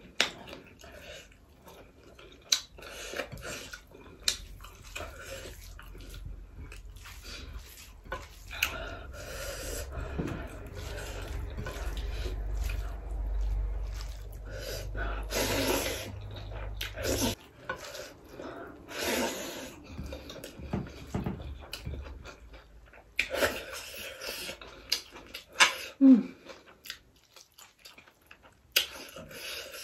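Close-up eating sounds of a person eating rice with greens by hand: wet chewing and smacking mixed with fingers working rice on a plate, heard as a string of irregular clicks and short squelchy rustles. A low hum runs through the middle stretch.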